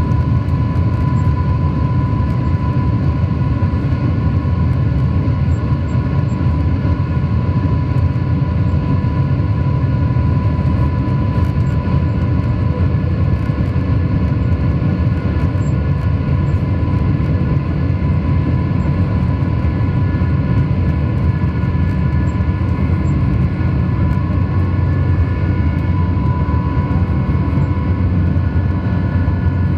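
Jet airliner's engines heard inside the cabin during the takeoff run: a steady engine whine over a deep, even rumble.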